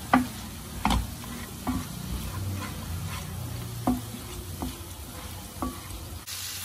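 Wooden spatula stirring chicken pieces in a frying pan, scraping and knocking against the pan about six times, over a steady sizzle of frying.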